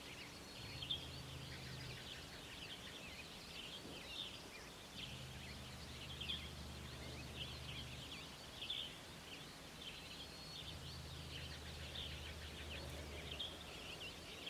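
Wild birds singing: many short chirps and trills overlapping throughout. Underneath, a faint low hum comes and goes three times.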